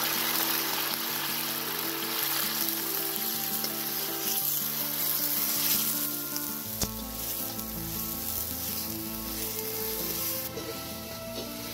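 Food sizzling as it fries in hot oil in a large metal wok, stirred with a metal slotted skimmer that knocks once against the pan about seven seconds in. Background music with sustained notes plays along.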